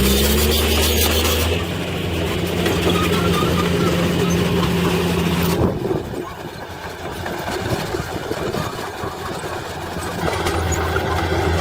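Heavy earthmoving machine's diesel engine running with a steady note. About halfway through, the sound changes abruptly and drops in level to a rougher, quieter engine noise. The steady engine note returns near the end.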